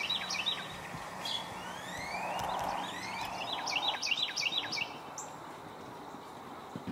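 Wild birds calling: clusters of quick chirping notes, with a few rising whistled sweeps between them, over a faint background hiss.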